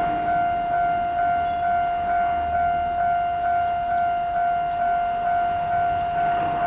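Japanese railway level-crossing warning bell ringing: an electronic 'kan-kan' tone repeating a little more than twice a second. It is the signal that a train is approaching and the crossing is closed.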